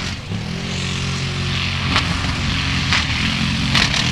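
Formula Offroad buggy's engine running hard under load as it churns through mud, its spinning tyres throwing mud with a steady hiss. There are sharp knocks about halfway through, a second later, and near the end.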